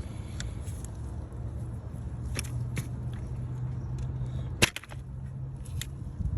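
Tools clicking and snapping against a stuck N54 boost solenoid as it is worked loose. The clicks come several times over a steady low hum, and one sharp snap about two-thirds of the way through is the loudest.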